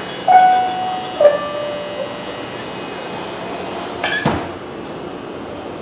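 PATH PA5 subway car's door-closing chime, two descending tones about a second apart, then about three seconds later the sliding doors shut with a single thud. A steady hum of the car runs underneath.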